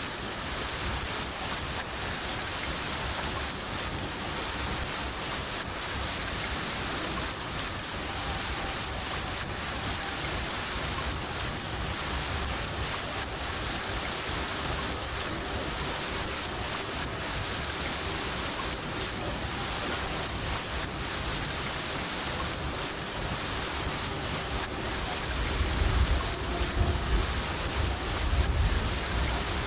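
Crickets chirping in a steady, even rhythm over a constant hiss of rain. A low rumble of thunder comes in near the end.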